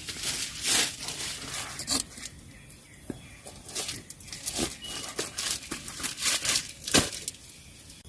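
Crinkling and rustling of something being handled, in irregular bursts, with a sharp crackle about seven seconds in.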